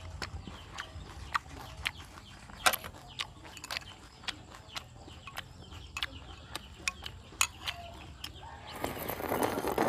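Eating sounds: a metal spoon clicking and scraping against a small bowl, with wet mouth sounds of chewing, as a run of sharp separate clicks. Near the end comes a longer, noisier rush of sound.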